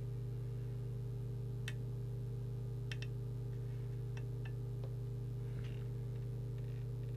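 A steady low electrical hum, with about six sharp clicks between two and five seconds in, two of them close together, as a plastic trimming tool works the presets on the CB radio's circuit board.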